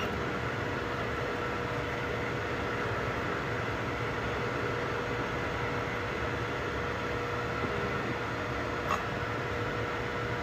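3D printers running a print: a steady whir of cooling fans and stepper motors with a few constant whining tones. A single small click about nine seconds in.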